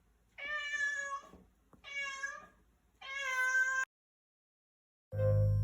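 Scottish Fold cat meowing three times, each meow just under a second long with short pauses between. Background music starts near the end.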